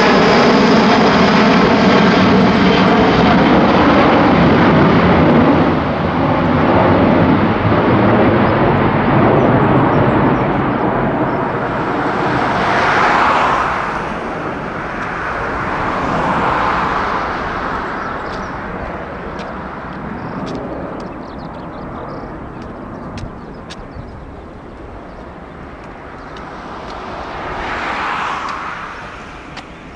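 Airbus A330-300 with Pratt & Whitney PW4000 turbofans climbing away after takeoff. The jet noise is loud with a steady engine tone as it passes overhead, then fades steadily as it departs, swelling and ebbing a few times.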